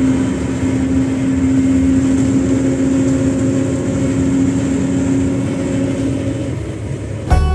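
Volvo coach's engine and road noise heard from inside the passenger cabin while driving: a steady drone with a constant low hum. Background music cuts in at the very end.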